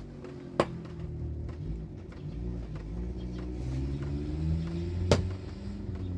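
A low engine rumble whose pitch wavers up and down, with two sharp clicks, one about half a second in and a louder one near the end.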